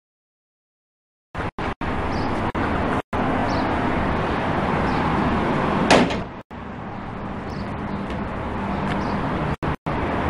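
Steady, noisy background broken by signal dropouts: the sound cuts out completely for over a second at the start, then briefly several more times. About six seconds in there is a single sharp bang.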